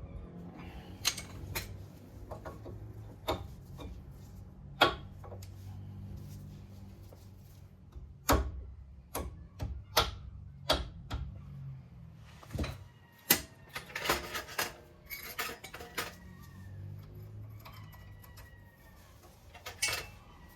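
Irregular metallic clinks and knocks of hand tools and brake parts being handled as new brake pads and their hardware are fitted to a caliper, over a faint low hum.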